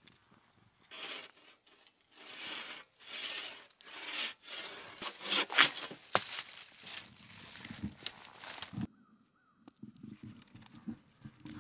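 Bow saw cutting through a log in back-and-forth strokes, each a rasp of about a second at first, then quicker and louder. The sawing stops abruptly about nine seconds in, followed by a few light wooden knocks as the cut round is handled.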